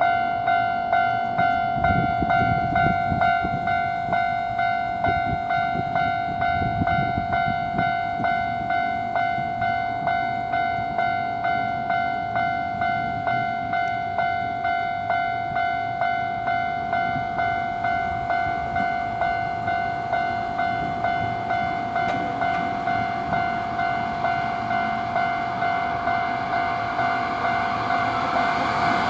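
Japanese level-crossing warning bell ringing steadily, about two strokes a second. Near the end the noise of an approaching Hankyu Kyoto Line train rises under it.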